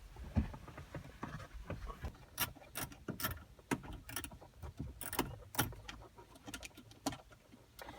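Screws being driven by hand into dash trim, with irregular light clicks and small knocks of the screwdriver and plastic panel; a few sharper clicks come in the middle.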